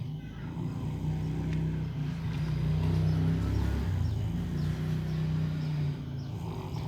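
A sleeping person snoring: a low, drawn-out drone that drops off about six seconds in.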